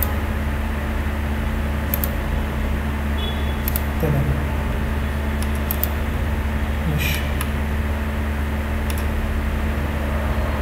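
Steady low hum and hiss from the recording setup, with a handful of short, sharp computer mouse clicks scattered through it.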